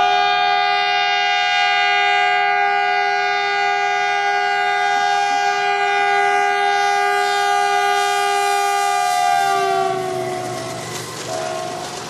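WDG-4G diesel locomotive's air horn sounding one long continuous blast of two notes together. About ten seconds in, the pitch sags and the horn dies away as the rumble of the running train rises.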